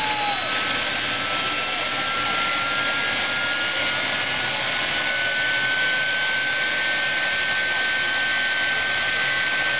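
Jet truck's turbine engine running in place: a steady rush with a high whine that creeps up in pitch over the first several seconds, then holds steady.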